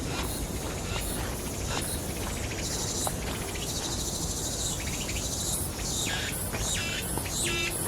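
Forest ambience: insects and birds chirping in high, repeated calls, with a run of rapid pulsed calls near the end, over a steady low rumble.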